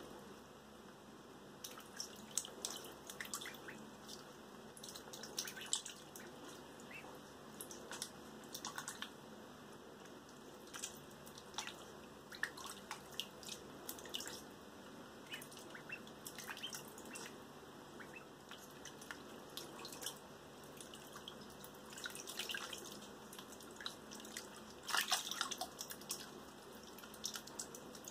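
Ducklings paddling and dabbling in a shallow plastic tub of water: irregular small splashes and drips, thickest about three-quarters of the way through.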